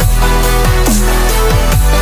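Background electronic dance music with a heavy bass and a steady kick-drum beat.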